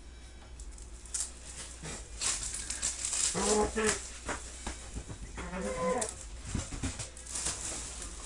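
Plastic wrapping on a trading-card box being torn and crinkled, a run of irregular crackles. Two short tones with a clear pitch stand out, about three and a half and five and a half seconds in.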